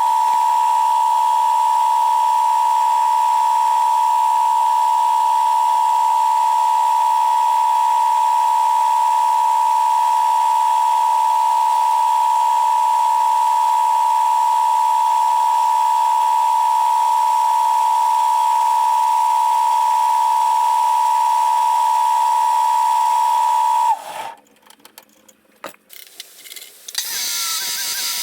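A loud, steady high-pitched tone held unchanged for about 24 seconds, then cutting off suddenly. Near the end a short burst of high hissing noise starts.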